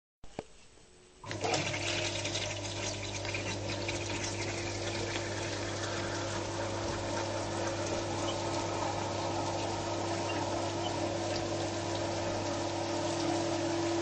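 Bosch countertop dishwasher's wash pump starting suddenly about a second in, then running with a steady hum while water from the spray arm sprays and hisses against the racks and dishes.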